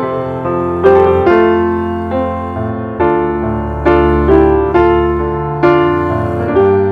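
Background piano music: a slow melody of struck notes over held chords, each note fading before the next.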